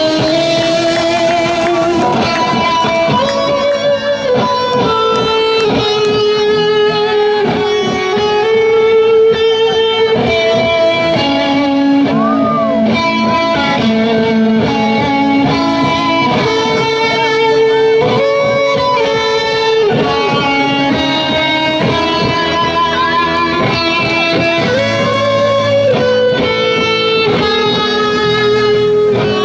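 Live band playing an instrumental patriotic tune, with electric guitar carrying the melody in long held notes.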